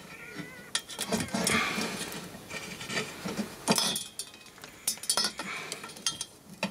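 Handling of a glass fluorescent tube: several sharp knocks and clinks as the tube is moved and set in place.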